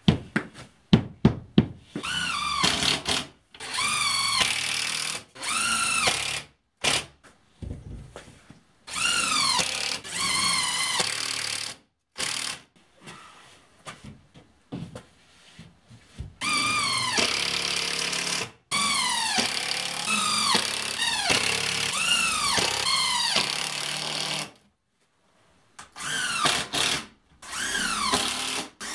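Cordless drill-driver running screws into OSB sheathing in repeated bursts of one to six seconds, its motor whine rising and falling in pitch with the trigger. A few short knocks come in the first second.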